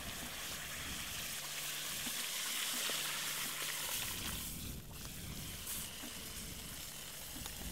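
Liquid nitrogen being poured from a dewar through a plastic funnel into a plastic bottle, trickling and hissing as it boils off on contact. The hiss is loudest from about one and a half to four seconds in.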